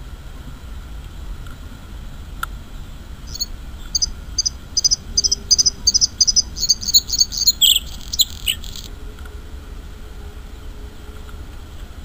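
Bluethroat singing: a phrase of quick, high, repeated notes at about three a second, breaking into a rapid burst of varied notes before it stops. A low steady rumble runs underneath.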